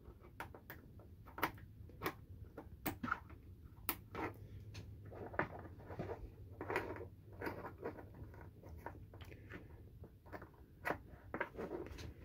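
Plastic MC4 solar cable connectors and their cables being handled and pushed together: scattered light clicks, taps and rustling, over a faint steady low hum.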